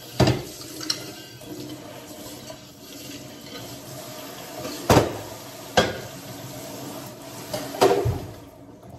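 Kitchen tap running into the sink while things are rinsed, with a few sharp clatters of dishes knocking against the sink, the loudest at the start, about five and six seconds in, and near the end.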